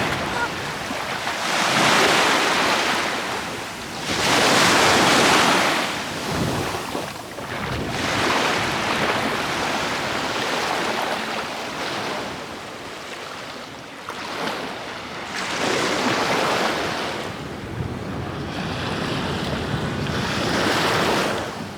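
Sea waves breaking and washing on the shore, swelling loud and falling away every few seconds.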